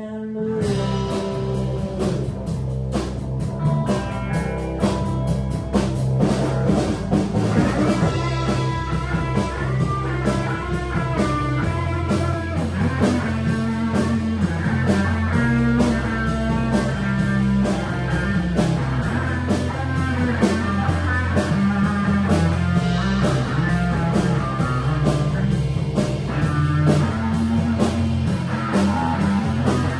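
Rock trio of electric guitar, bass guitar and drum kit playing an instrumental passage without vocals, the guitar playing a busy lead line over steady bass notes and drum beats.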